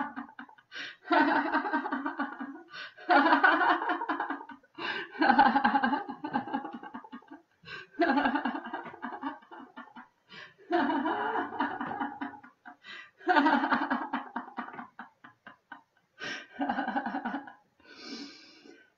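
A woman laughing out loud in about eight bouts of rapid 'ha-ha' pulses, each a second or two long with short breaths between: deliberate laughter-yoga laughter.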